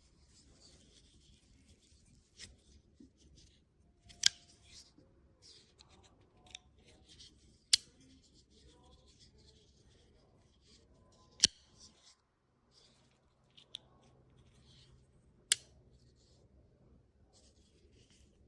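CJRB Maileah folding pocket knife handled in the hand: four sharp clicks about every four seconds, with light scraping and rustling between them.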